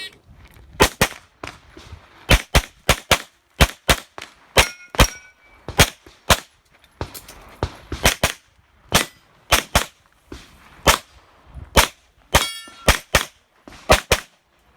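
Pistol fire in rapid strings of about thirty shots, mostly fired in quick pairs with short pauses between groups of targets. Twice a hit steel target rings with a short metallic ding.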